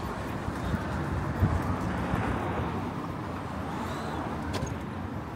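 Town street ambience with a motor vehicle passing. Its road noise swells through the middle and fades toward the end, and a short thump comes about one and a half seconds in.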